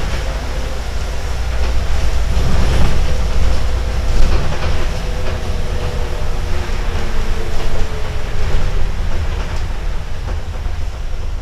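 Inside a MAZ-105 articulated diesel bus on the move: a steady low engine and road rumble, with rattles and clicks from the body and fittings.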